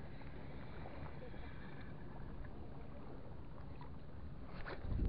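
Seawater lapping and sloshing around an angler wading chest-deep, with some wind rumble on the microphone. A louder splash about four and a half seconds in.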